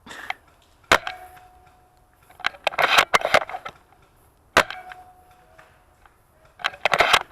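Two shots from a spring-powered VSR-10 bolt-action airsoft sniper rifle. Each is a sharp crack with a brief ringing tone after it, and each is followed a second or so later by a rattle of clicks as the bolt is worked to cock the rifle and chamber the next BB.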